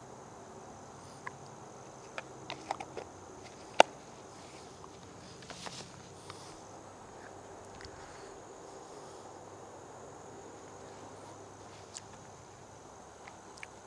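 Steady high-pitched chorus of crickets, with scattered sharp clicks and taps over it. The loudest click comes just under four seconds in, a short rustle follows about two seconds later, and a few fainter clicks come near the end.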